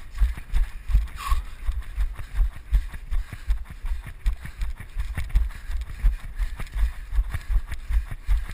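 Running footsteps on grass: a steady rhythm of dull thumps, about three a second, with rushing wind on the microphone.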